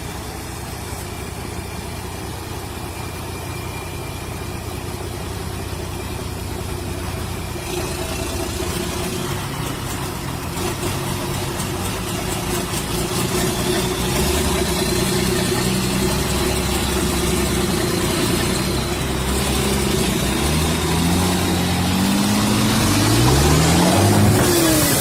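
A vehicle engine running steadily, then revving up in several rising sweeps over the last few seconds.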